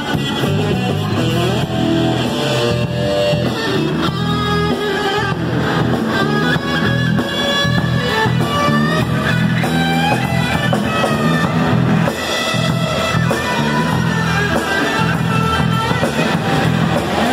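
Live rock band playing: electric guitar over bass guitar and drum kit, loud and continuous.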